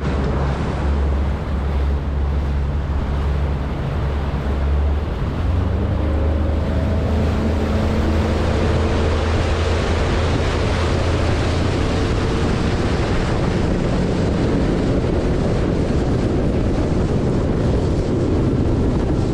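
Outboard motor on a bass boat running across the lake, with wind blowing on the microphone and water rushing past the hull. The engine tone comes in about five seconds in and climbs a little as the boat picks up speed.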